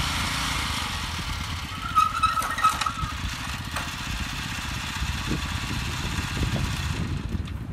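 Honda Komame F200 mini tiller's 2 hp engine running steadily with a rapid low firing beat, with a few sharp clicks and a brief high ring about two seconds in. The sound turns duller near the end.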